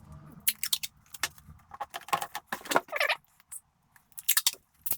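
Sticky tape pulled off the roll and torn, then pressed onto cardboard: several clusters of sharp crackling rips and clicks, with a longer rasping pull about three seconds in.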